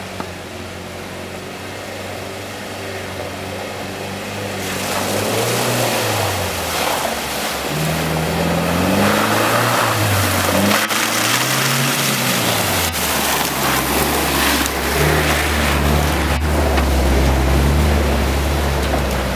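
UAZ off-road vehicles' engines revving up and down as they crawl through mud and standing water, with sloshing and splashing. The sound grows louder from about five seconds in as the lead vehicle comes closer.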